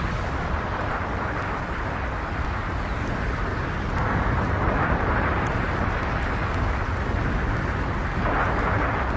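Fire and explosion aftermath sound effect: a steady rumble with a rushing hiss, swelling a little about four seconds in.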